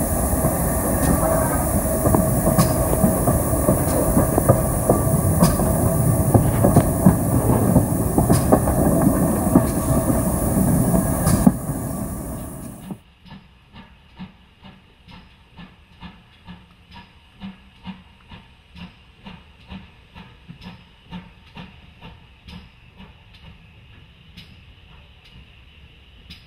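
Steam-hauled train heard from inside a carriage: a loud, steady rumble and hiss, with wheels clicking over the rail joints. About thirteen seconds in it changes to a much quieter lineside scene, where a GWR Manor-class steam locomotive drifts in with soft, regular beats about two a second.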